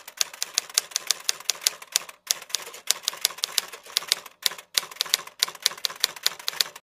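Typewriter key-clicking sound effect, about four to five clicks a second, with short breaks about two and four and a half seconds in; it stops abruptly near the end.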